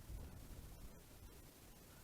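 Near silence: a faint low rumble of background noise.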